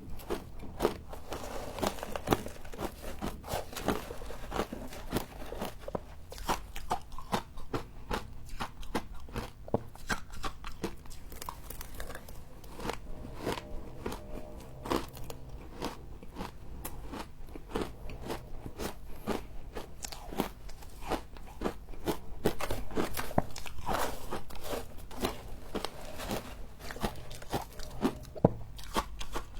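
Close-up crunching of freezer-style frost being bitten and chewed, a dense run of sharp crackles, several per second.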